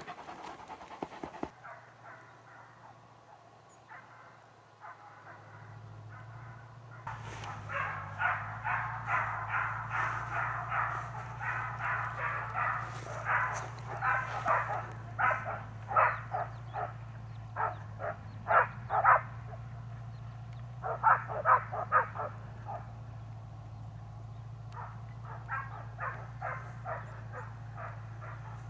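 Hunting dogs barking in a long, steady run at about two barks a second. The barks start about seven seconds in, are loudest in the middle and grow fainter near the end. This is the pack giving tongue on a wild boar chase, over a steady low hum.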